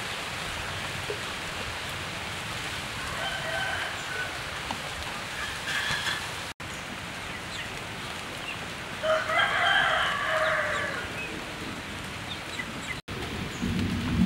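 A rooster crowing twice, faintly a few seconds in and louder about nine seconds in, over a steady background hiss.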